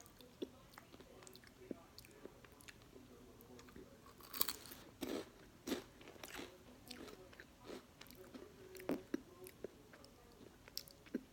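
Close-up chewing of a thick ridged potato chip (Ruffles Double Crunch): irregular crisp crunches, the loudest cluster about midway.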